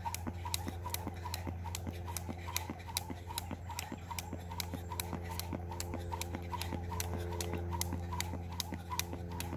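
Jump rope being skipped on asphalt pavement: the cord slaps the ground in a steady rhythm of sharp clicks, about three a second. A steady low hum runs underneath.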